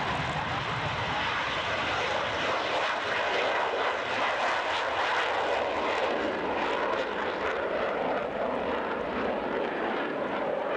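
Twin-engine F/A-18 fighter jet taking off in afterburner and climbing away, its jet noise steady and unbroken.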